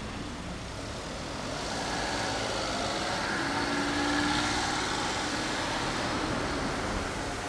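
Kawasaki Vulcan 400 Classic's V-twin engine idling steadily.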